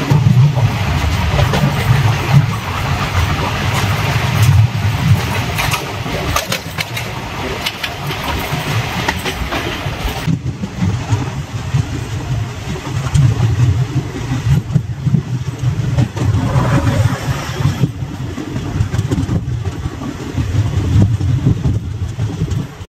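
Express train of old ICF coaches running at speed, heard from on board: a steady heavy rumble with scattered sharp clicks from the wheels and track; the hiss above it softens about halfway through.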